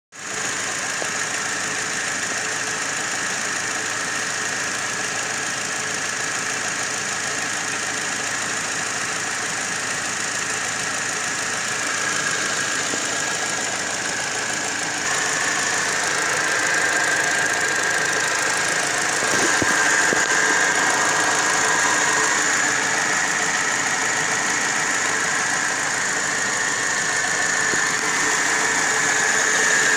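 Car engine running with the air conditioning switched on, giving a steady high-pitched squeal over the engine noise; the squeal grows louder about halfway through. The squeal is the noise that appears only when the air conditioning is on.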